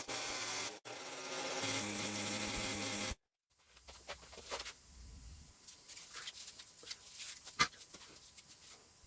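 Pneumatic air hammer buzzing at a rusted-in, seized ABS wheel speed sensor for about three seconds, then stopping abruptly. Quieter scattered clicks and taps of metal follow.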